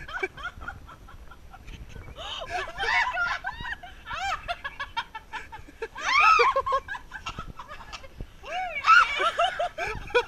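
Women laughing and squealing in several high-pitched bursts, loudest about six seconds in and again near nine seconds.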